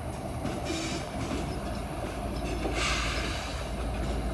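Diesel locomotives of a CSX mixed freight train running at a distance: a steady low rumble with a short burst of hiss about three seconds in.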